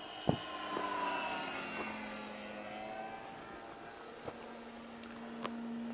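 Brushless electric motor and propeller of a Ripmax Corsair RC warbird model flying overhead. Its whine glides down in pitch during the first couple of seconds, then settles into a steadier lower tone. There is a sharp click about a third of a second in.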